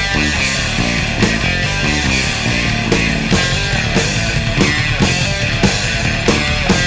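Progressive rock music with guitars over a steady drum beat.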